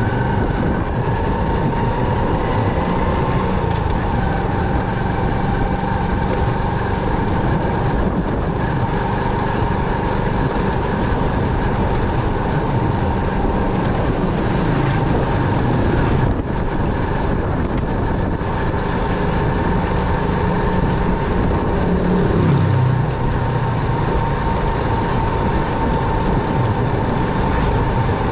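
Motorcycle running while being ridden: steady engine and road noise with a steady whine over it, the engine note shifting and briefly louder about three quarters of the way through.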